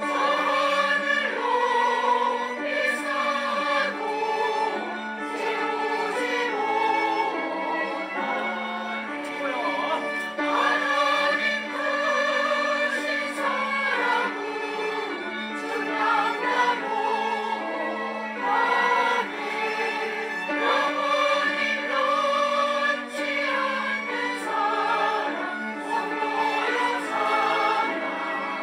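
Church choir singing a hymn, with slow, held notes.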